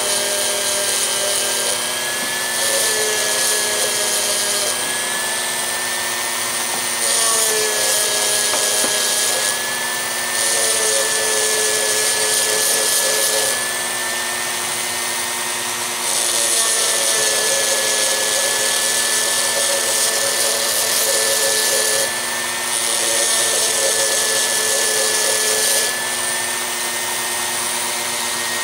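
Dremel rotary tool running with a steady high whine, its grinding stone worked against cured JB Weld epoxy and steel at the spoke-to-hub joints of a wheel. The grinding hiss swells in about six passes of a few seconds each and drops back between them while the motor keeps running.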